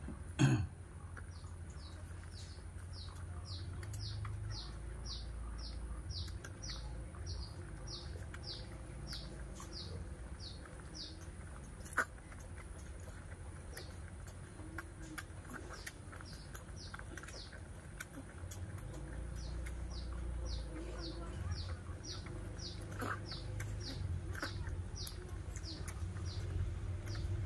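A bird chirping over and over: short, high, falling chirps about two a second, over a steady low hum. There is a brief low sound about half a second in and a sharp click midway.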